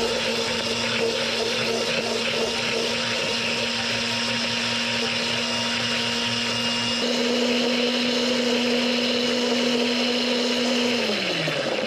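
Electric countertop blender running steadily, purĂ©eing huacatay leaves and garlic with water into a green paste. It gets a little louder about seven seconds in, then is switched off near the end, its motor pitch falling as it spins down.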